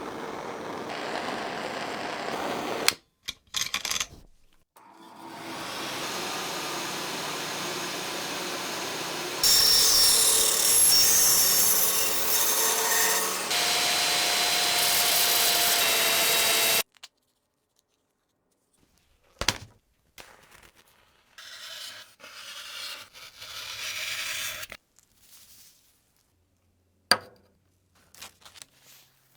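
A motorised workshop tool running in several separate, abruptly cut stretches, loudest and shrillest about halfway through. Then comes quieter intermittent scraping and a few sharp single knocks.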